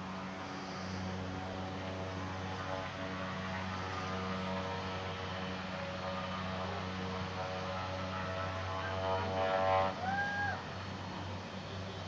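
Light aircraft's piston engine and propeller running as a steady low drone, swelling briefly before a short high chirp near the end.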